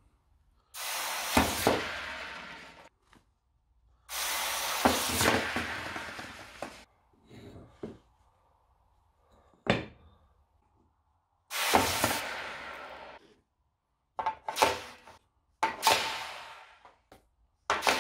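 Hot freshly cast zinc ingots dropped one at a time into a pot of water to quench. Each one lands with a sharp splash and hisses, the hiss fading over a second or two. There are three long hisses, then several shorter ones near the end, and one sharp knock in between as an ingot is tipped out of its graphite mould.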